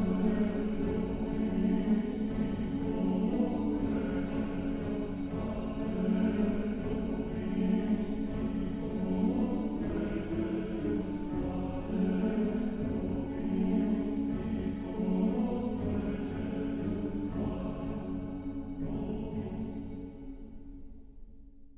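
Background music with slow, held tones, fading out over the last few seconds.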